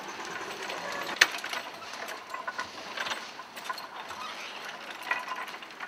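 Irregular mechanical clicking and rattling, with one sharper click about a second in.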